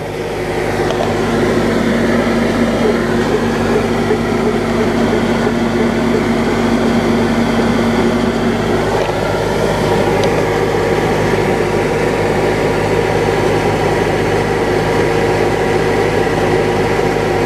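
Grain dryer fan and a tractor driving the grain auger running steadily together in a loud drone. About halfway through, one low hum drops out and a higher one comes in.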